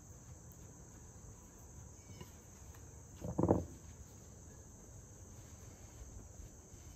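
Steady high-pitched chirring of crickets, with one short thump about three and a half seconds in.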